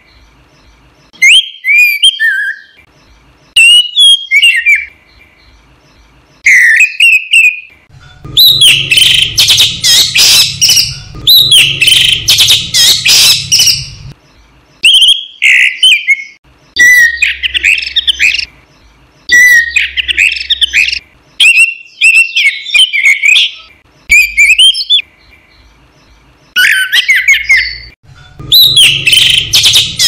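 Orange-headed thrush singing: short whistled phrases separated by brief pauses, with two longer, louder runs of rapid, harsh notes, one about a third of the way in and one near the end.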